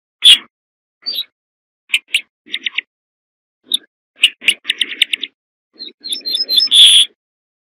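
Ortolan bunting singing: short phrases of quick repeated chirping notes with brief pauses between them. A denser run of higher notes ends in the loudest burst near the end.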